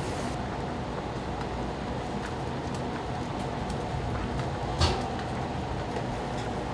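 Steady hum and hiss of restaurant ventilation or machinery, with a few faint clinks and one sharp clack, like a dish or utensil being set down, a little under five seconds in.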